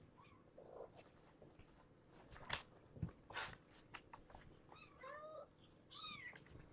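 A young kitten meowing twice, two short high-pitched mews about a second apart near the end, after a few light sharp clicks and taps.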